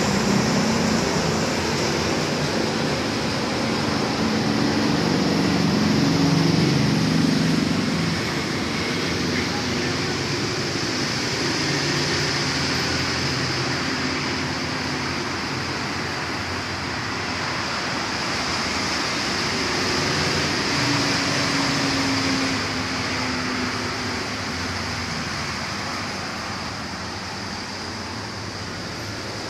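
Steady bubbling and water noise from a home aquarium's air line and filter, with a person's voice underneath at times.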